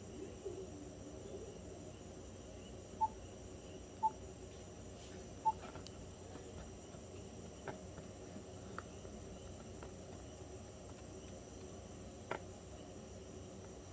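Faint steady background noise with a thin high tone running through it. Three short beeps come about a second apart, followed later by a few soft clicks.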